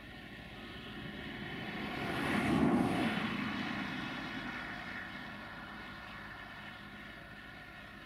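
A vehicle passing close by: its noise swells to a peak a little under three seconds in, then slowly fades away.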